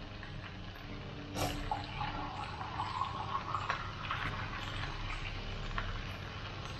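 Beef and okra in a thick chilli paste sizzling and bubbling in a nonstick wok over a gas flame, with a few light knocks, the clearest about one and a half seconds in.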